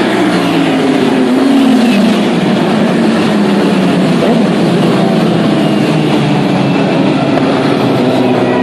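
Several 1000cc superbike engines running at high revs, their pitches overlapping and sliding up and down as the bikes change speed and gears.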